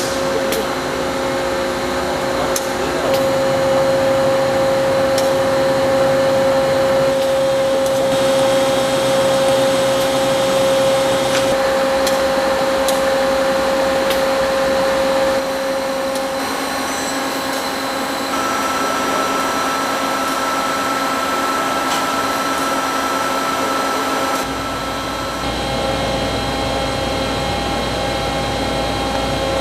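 Hankook CNC machining center running: a steady machine whine with scattered sharp clicks. The whine shifts to a higher tone about halfway through, and a low hum comes in near the end.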